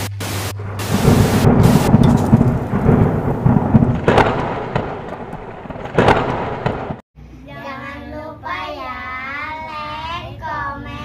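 Thunder sound effect: a loud rolling rumble with short bursts of hiss in the first two seconds and sharp cracks about four and six seconds in, cut off abruptly at about seven seconds. Then several children's voices sing together.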